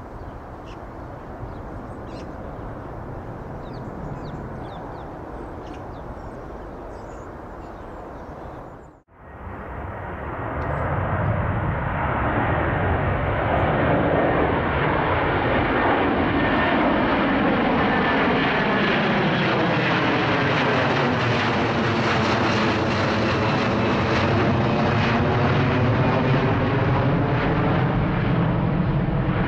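Airbus A380 jet engines rumbling steadily as the aircraft climbs away, with faint bird chirps over it. After a sudden cut about nine seconds in, an Airbus A330-300's Rolls-Royce Trent 700 engines climb out overhead on take-off thrust. The jet roar swells over a few seconds and then holds loud, with a slow sweeping, phasing quality to its tone.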